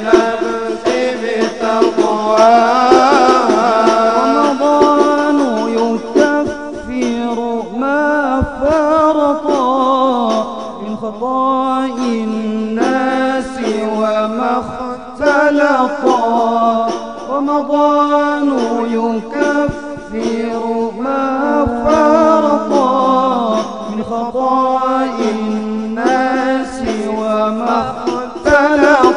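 Arabic devotional Ramadan song in banjari style: a melismatic sung melody carried without a break.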